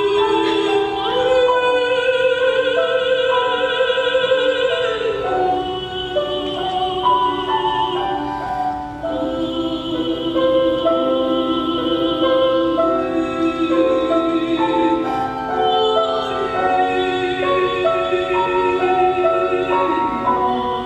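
Classical music: a woman's solo voice sings slow, long-held notes with vibrato, accompanied by violin and piano.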